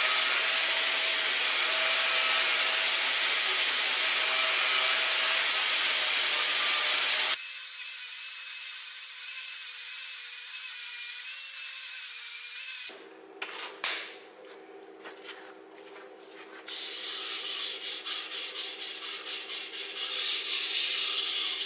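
Air-powered palm sander with 80-grit paper hissing as it runs against the wooden bowl to flatten raised grain. About seven seconds in its sound changes to a quieter hiss with a wavering whine, and it stops about thirteen seconds in. Near the end a steady lathe hum comes in with rapid rubbing ticks as a hand is held against the spinning bowl.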